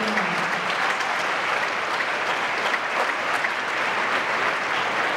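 A large concert audience applauding steadily: dense, even clapping.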